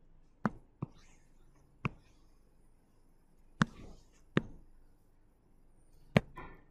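About six sharp, irregularly spaced taps of a stylus pen on a tablet screen, with a faint scratch of the pen tip between some of them.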